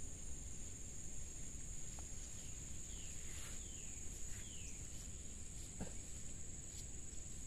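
Insects keeping up a steady, high-pitched drone over a low outdoor rumble, with a few short falling chirps in the middle.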